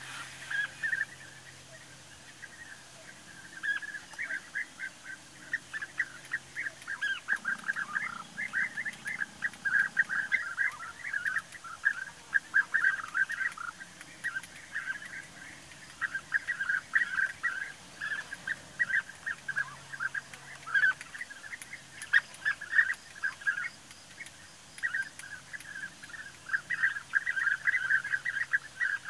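European bee-eaters calling: quick runs of short, rolling calls that come in bouts, starting a few seconds in, with brief lulls between them.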